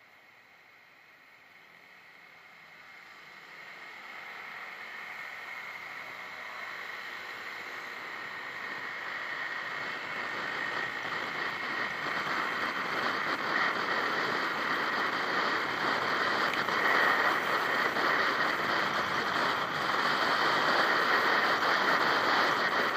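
Wind and road noise rushing over a scooter-mounted camera's microphone, growing from faint to a loud steady rush over the first ten seconds or so as the scooter pulls away from a stop and gathers speed.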